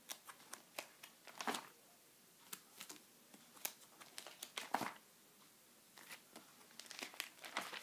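Clear plastic sheet protectors in a ring binder crinkling and rustling as the pages are turned: a string of irregular short crackles, with louder ones about a second and a half in, near the middle and near the end.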